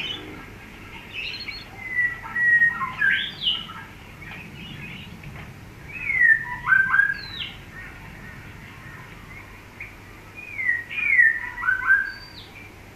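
A songbird singing three phrases of clear whistled notes, each note gliding down or sweeping up, with short pauses between the phrases.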